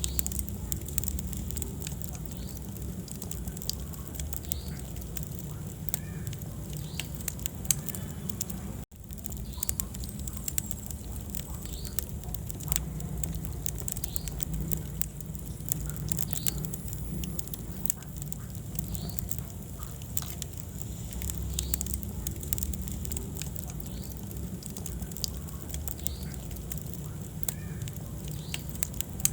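Wood fire burning in a fireplace: many sharp crackles and pops over a steady low rumble of the flames. The sound cuts out for an instant about nine seconds in.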